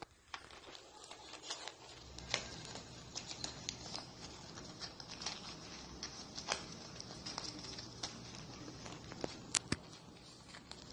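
Corgi puppy chewing a ball of crumpled paper: irregular crinkling and crackling of the paper with scattered small clicks, a few sharper ones standing out.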